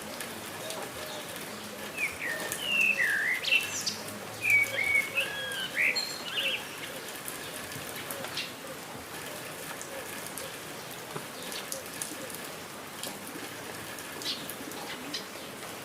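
Steady patter of rain with scattered drips, under birdsong. A run of bright, sweeping whistled bird calls from about two to six seconds in is the loudest part, with softer lower calls continuing in the background.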